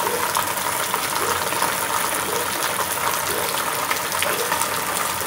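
Heavy rain pouring down steadily, a dense even hiss with scattered sharp taps of drops striking nearby surfaces.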